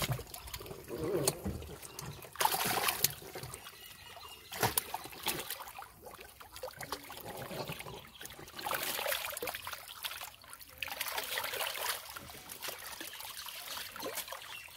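Shallow water splashing and sloshing in irregular bursts as a crowd of catfish thrash and hands grab at them, with a steady trickling between the louder splashes.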